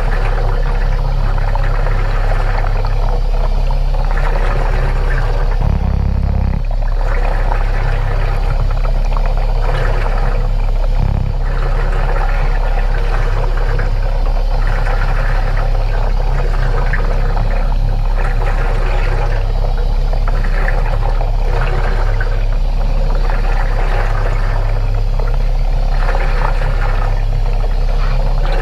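Muffled underwater bubbling and rushing of air escaping from a diving helmet, heard through a camera's waterproof housing over a steady low hum.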